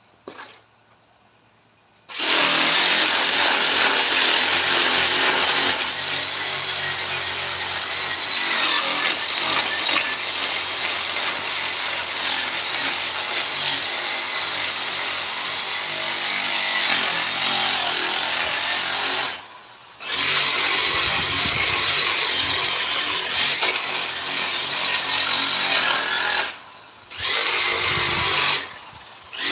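Handheld electric power tool working wood: a steady motor hum under the noise of the bit on the wood. It starts about two seconds in and stops briefly twice near the end before running on.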